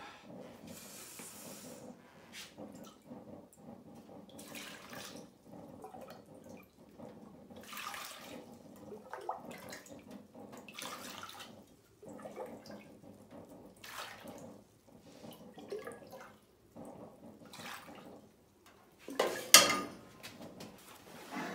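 Water being ladled from a metal pot into a wooden tub: repeated scoops and pours, splash after splash, with a louder clunk near the end.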